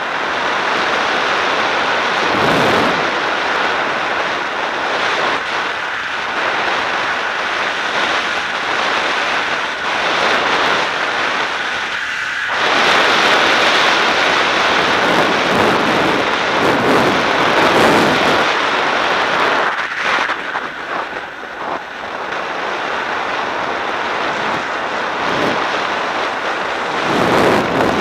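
Rushing wind on an action camera's microphone and snow scraping under a rider going down a groomed ski slope, a loud steady noise that swells in surges with speed and turns.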